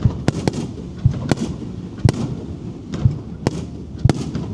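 Aerial fireworks bursting in quick succession: sharp bangs about twice a second and a deep boom about once a second, over a continuous low rumble.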